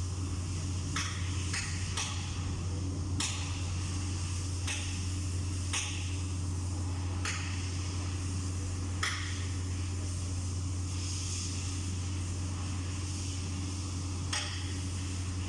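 Hand tools knocking and clinking on metal parts: about nine sharp, irregularly spaced taps over a steady low hum.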